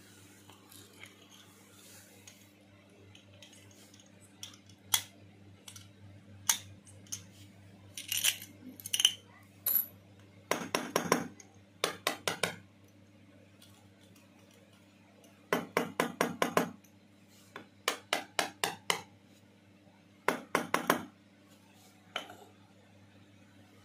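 Steel padlock and its keys clinking against a concrete floor as they are handled: scattered single clicks, then several quick runs of rattling clicks. A faint steady hum sits underneath.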